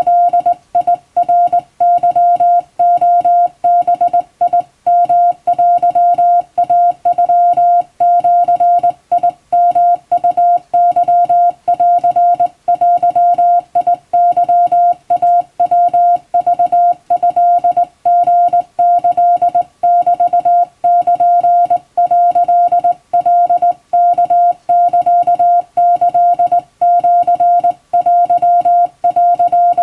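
Morse code sent by hand: one steady mid-pitched beep keyed on and off in quick dots and dashes, spelling Japanese wabun code from a telegram practice text.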